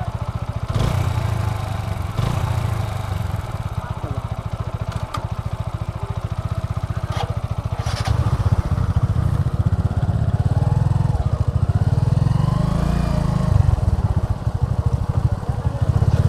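Motorcycle engine running close up, a steady fast pulse. It idles at first, then gets louder about halfway through as the bike pulls away and rides on. A few sharp clicks come in the first half.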